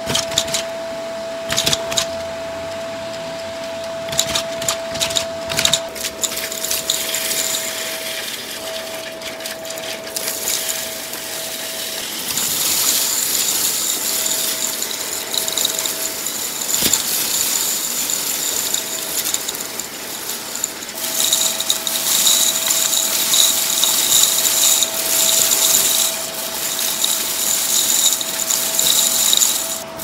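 Vacuum cleaner running through a hose wand and crevice tool, its motor a steady whine, played at double speed. In the first few seconds, plastic bottle caps clatter up the tube in a run of sharp clicks. From about twelve seconds on, a pile of small colourful debris rattles and hisses through the hose, louder in the second half.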